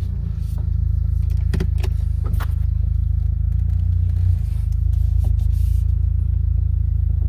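2012 Buick Regal GS's turbocharged 2.0-litre four-cylinder running steadily at low revs: an even low rumble with a fast regular pulse. A few light clicks sound about one and a half and two and a half seconds in.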